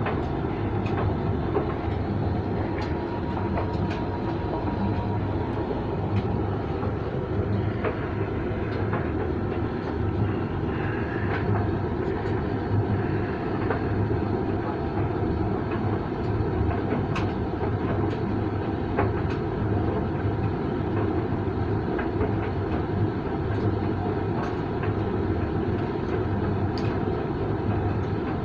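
Creda 37762G tumble dryer running: a steady drum rumble with scattered light clicks.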